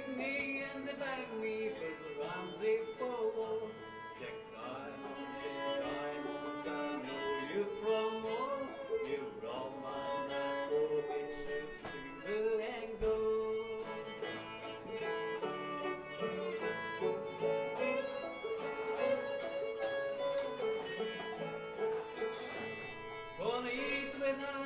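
Old-time string band playing live, a fiddle carrying the tune with sliding notes over plucked-string accompaniment.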